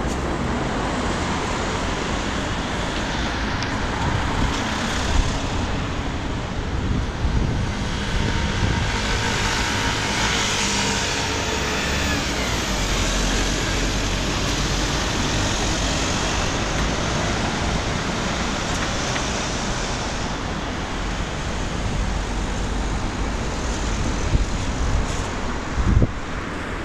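City street traffic noise: a steady rumble of road vehicles, growing louder for several seconds midway as a van drives past.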